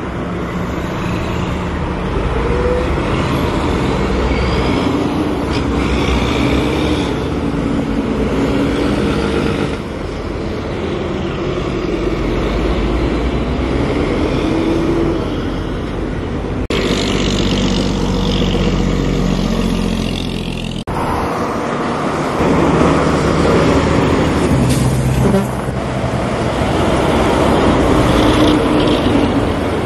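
Highway traffic driving past close by: trucks and cars with their engines running, the engine notes rising and falling as each vehicle passes, over steady tyre and road noise.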